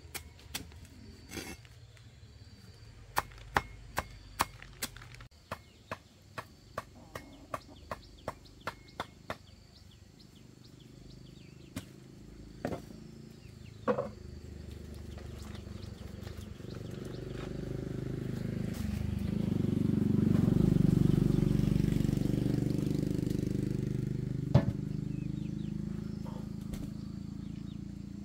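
Machete chopping leafy greens on a wooden block, about two sharp knocks a second, stopping after about nine seconds with a few more strokes a little later. In the second half a low rumble swells up and fades away.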